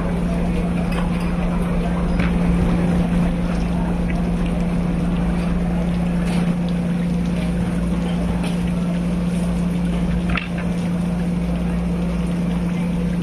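Steady, loud machine hum with a low rumble. Over it, now and then, come short sharp clicks and taps from a knife cutting through a large amberjack's head on a wooden chopping board.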